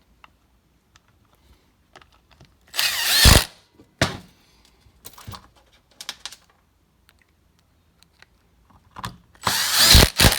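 A power drill-driver runs screws into a cast-aluminum closing wheel in two short bursts, one about three seconds in and one near the end, with faint clicks of handling between them.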